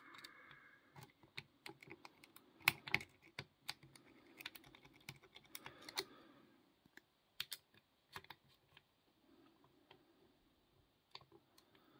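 Faint, irregular small metallic clicks and taps of a lock pick and tension wrench working in a small Rocky padlock that will not open.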